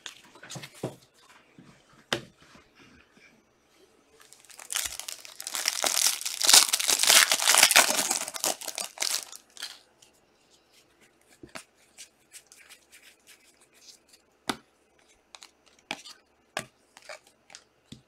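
A trading-card pack's plastic wrapper being torn open and crinkled, a noisy rustle of about five seconds in the middle, with sharp clicks of cards being handled before and after it.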